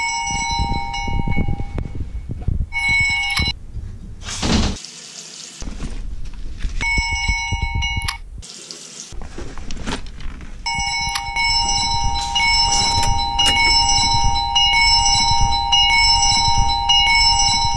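Smartphone alarm ringing: a bright electronic tone that sounds in short stretches with gaps, then runs on steadily for the last seven seconds or so. Two short bursts of hiss and low handling thumps come between the rings.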